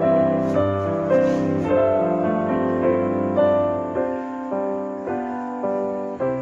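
Instrumental background music led by piano, a slow run of held notes.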